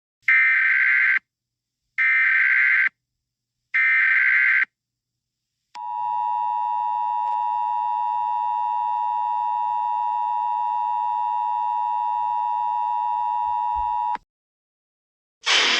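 Emergency Alert System header: three short bursts of warbling SAME data tones, each about a second long with short gaps between them. They are followed by the two-tone EAS attention signal, held steady for about eight seconds and then cut off. A loud sound with sweeping pitch cuts in at the very end.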